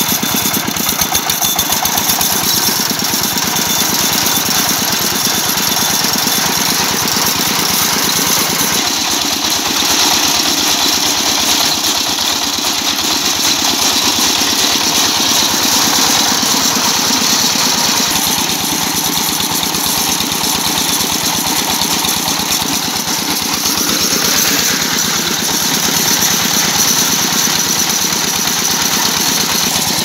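Single-cylinder diesel engine running steadily with a rapid, even knock as it drives a belt-driven brick-crushing machine.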